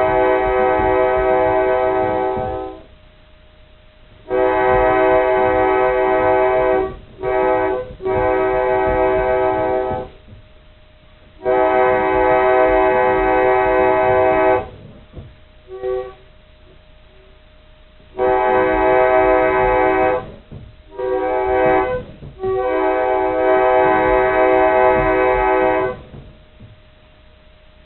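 Old pump organ sounding a sustained chord on the K5LA horn's notes (D#, F#, G#, B, D#, a B major 6th) in imitation of an Amtrak K5LA locomotive air horn. It is played in separate blasts in the pattern of a grade-crossing horn signal, long, long, short, long, and then the pattern again. A faint steady tone lingers between the blasts.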